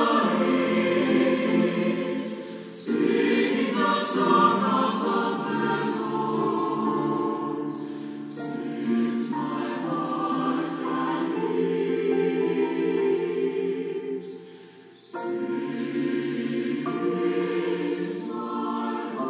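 Mixed SATB choir singing a slow choral anthem with piano accompaniment, in sustained phrases with a short break about three seconds in and another just before fifteen seconds, after which the voices come back in together.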